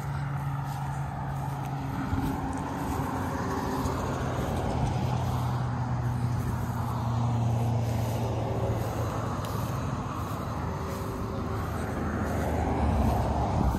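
Road traffic: cars passing, a steady engine hum with tyre noise that swells and fades, loudest about halfway through and again near the end.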